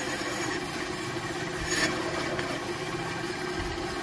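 Vertical bandsaw running and cutting through a thick metal plate, a steady sawing sound with an even hum under it.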